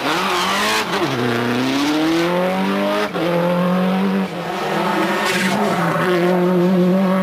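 Subaru Impreza WRC rally car's turbocharged 2.0-litre flat-four engine driven hard. The note dips about a second in, climbs, and drops sharply at a gear change about three seconds in. After a brief lift it holds at high revs.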